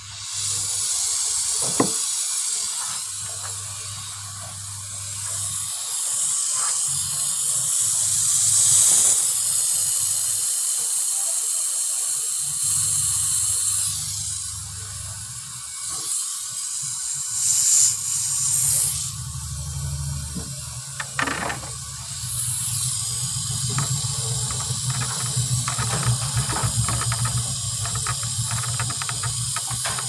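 Steady hissing of gas at the fridge's evaporator tubing, swelling and fading in strength, over a low hum that drops out now and then, with a few light clicks.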